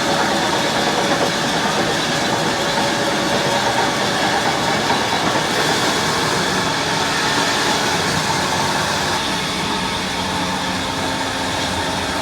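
Sawmill saw machine running steadily: a dense, even mechanical noise with a few steady tones through it.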